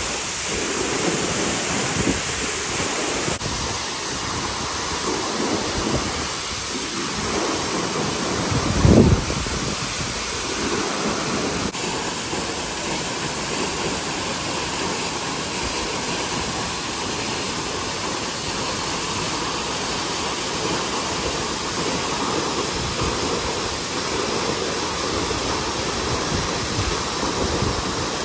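Waterfall: a steady noise of falling water, with a brief low thump about nine seconds in that is louder than the water.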